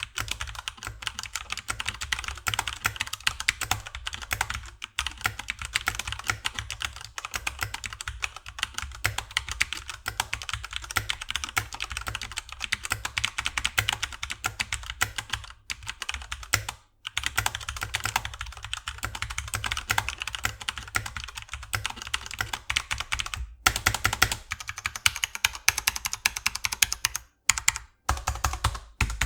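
Fast, continuous typing on a Corsair K95 RGB Platinum mechanical keyboard with linear Cherry MX Speed switches, keys clacking in rapid runs with a few brief pauses.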